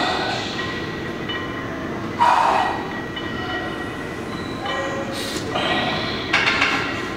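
A person breathing hard, with a few sharp exhalations as he pulls barbell bent-over rows, over a steady background rumble.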